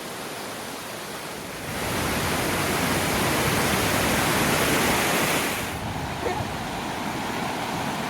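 Rushing water of the upper Bridal Veil Falls, a steady hiss that swells from about two seconds in and eases again near six seconds.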